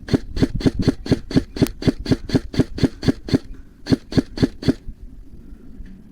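Airsoft gun firing rapid single shots, about four a second: a long string of about fifteen, a short pause, then four more.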